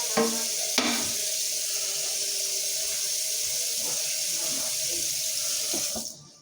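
Cold tap water running into a pot of freshly boiled eggs to cool them, with two knocks in the first second. The tap shuts off suddenly near the end.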